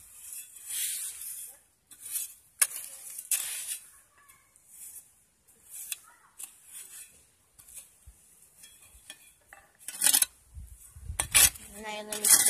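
A small metal hand trowel scraping and grating across a concrete floor in short, irregular strokes as sand, soil and chicken manure are mixed. A chicken clucks near the end.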